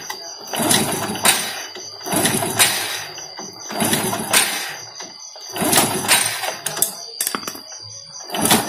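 Honda motorcycle being kick-started over and over, about five kicks each a second and a half to two seconds apart, with the engine not catching between them.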